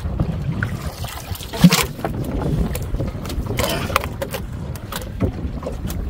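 Wind rumbling on the microphone aboard a small fishing boat, with scattered knocks and one loud thud about a second and a half in as a stingray is hauled over the gunwale onto the deck.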